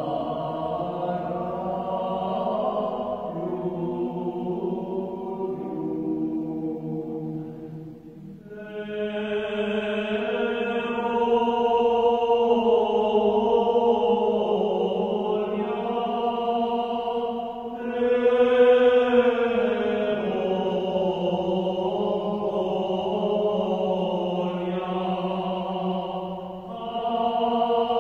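Armenian liturgical chant sung in long, slowly moving phrases, with short breaks about 8 and 18 seconds in and again near the end.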